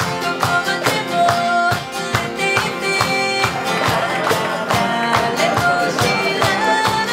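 Band song: acoustic guitars strummed over a steady beat, with singing.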